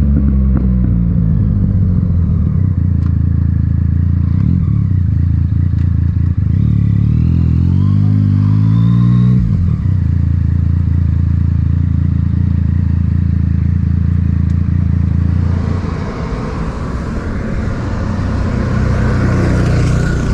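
Yamaha MT-09's three-cylinder engine through an Akrapovic titanium exhaust, heard from on the moving bike. Its pitch falls, then climbs through the gears a few seconds in, holds steady, and drops to a lower, quieter run near the end, with wind noise.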